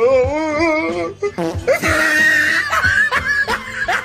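Music with a steady beat and a wavering, vibrato-laden melody line.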